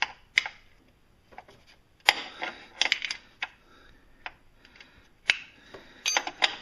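Irregular metallic clicks and clinks of a wrench and socket working on the belt tensioner's mounting bolts, bunched about two to three seconds in and again near the end.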